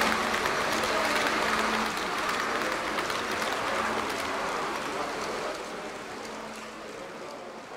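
H0-scale model passenger train running past on the layout: a steady clattering rumble of the coaches' wheels on the track, dying away as the last coach passes about five seconds in.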